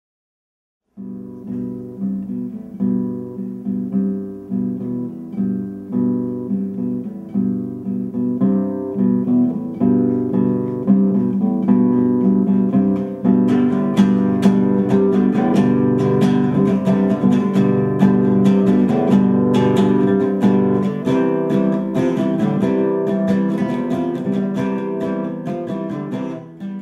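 Acoustic guitar music: plucked notes starting about a second in, filling out into busier, louder strumming from about halfway.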